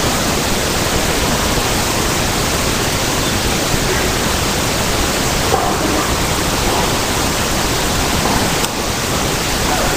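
Loud, steady hiss of noise spread evenly over all pitches, like static on a poor recording, with faint traces of a voice buried beneath it. The level dips briefly near the end.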